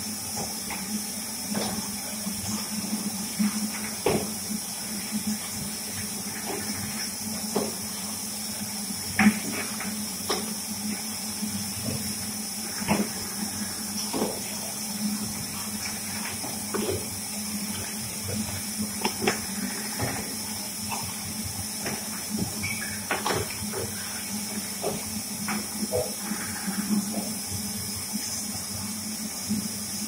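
Manual glass-bottle rinsing machine running: a steady hiss from its spray nozzles over a low hum, with frequent irregular clinks and knocks of glass bottles being set onto and lifted off the nozzles.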